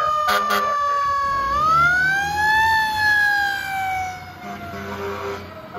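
Fire truck's Federal Q2B mechanical siren wailing: the tone sags, winds back up about a second and a half in, then slowly coasts down as the truck pulls away and fades. Pulsing air-horn blasts come in near the end, over the rumble of the truck's engine.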